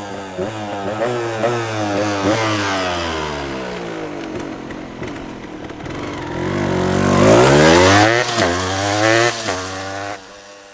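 Yamaha DT125 two-stroke single-cylinder engine revving: the pitch climbs in short rising steps, sags away, then rises sharply to a loud high rev. A few quick blips follow before it drops back to a low steady idle near the end.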